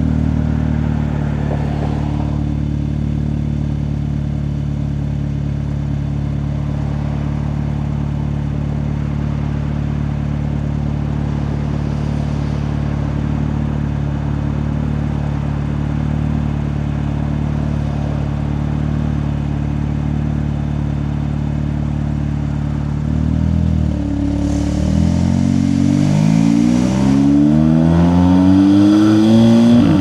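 Audi S3 8V's tuned 2.0-litre turbocharged four-cylinder, fitted with an Integrated Engineering cold air intake, turbo inlet and downpipe, idling steadily. About 23 seconds in it pulls away, getting louder, its pitch climbing and dropping back with each upshift.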